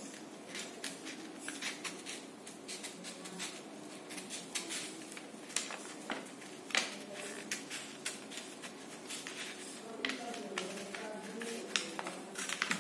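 Scissors cutting through folded paper: a run of irregular crisp snips, a few sharper than the rest.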